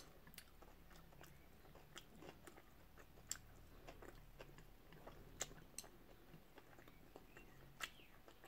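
Near silence broken by faint chewing of sushi and a scattering of small, sharp clicks.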